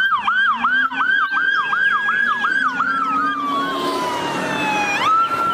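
Police car electronic siren in a fast yelp, about four sweeps a second. About halfway through it slows into one long falling wail, then jumps back up to a steady high tone near the end. A second siren yelps more faintly underneath.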